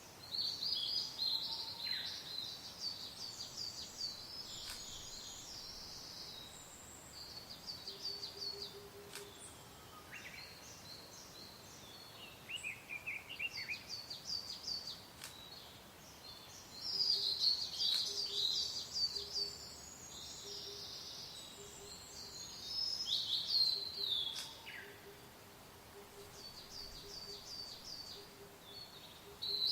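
Several songbirds singing in bursts of quick, trilled, high-pitched phrases over a faint steady wind hiss, with a low note repeating softly in the background from about a quarter of the way in.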